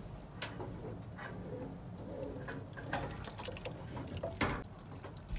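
A saucy ground-beef and tomato mixture pouring and sliding from a skillet into an enamel stockpot of drained noodles, with a few sharp knocks of metal against metal as the pan is tipped against the pot.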